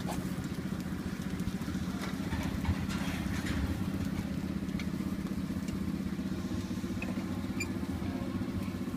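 Small engine idling steadily: a low, even hum with a fast pulse, with a few faint ticks around seven seconds in.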